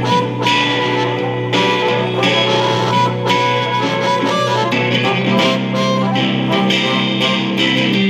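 Live blues duet of electric guitar and harmonica, the guitar playing a run of plucked notes under held harmonica tones.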